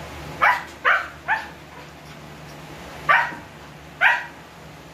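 Sleeping one-week-old husky puppy yipping in its sleep while dreaming: five short high yelps that fall in pitch, three in quick succession and then two more about a second apart.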